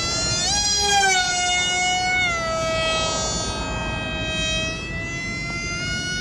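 Electric RC airplane's motor and propeller whining in flight, the pitch rising about half a second in, dropping a couple of seconds later and sagging slowly as the throttle changes and the plane passes.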